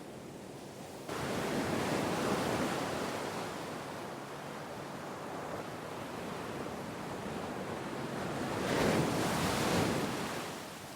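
Sea waves washing onto the shore: a wave comes in suddenly about a second in, and a larger surge swells near the end and then recedes.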